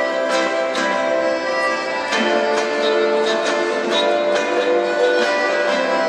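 A small ukulele ensemble strumming chords, with a melodica playing the melody in held notes over it.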